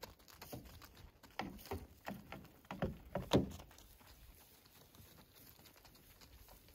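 Hooves of young deer trotting and bounding on a gravel track: a scatter of light, irregular thuds during the first three and a half seconds, then only a faint outdoor background.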